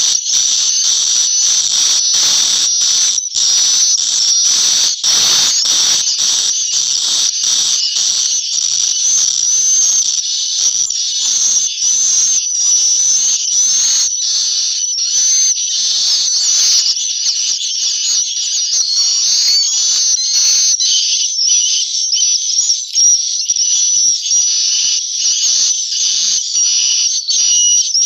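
Many edible-nest swiftlets twittering inside a swiftlet house: a dense, high-pitched chattering with frequent sharp clicks. The clicks and lower rustle thin out in the last several seconds while the twittering carries on.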